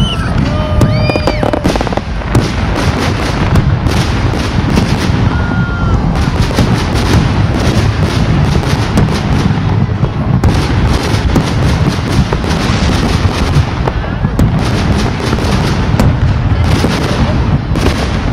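Fireworks display: a continuous barrage of booming shell bursts and sharp crackling bangs, with a few short whistling tones in the first couple of seconds.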